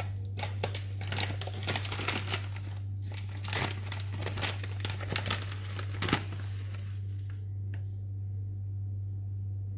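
Plastic bag of grated coconut crinkling as it is handled and opened, a dense run of crackles that stops about six seconds in. A steady low hum sits underneath throughout.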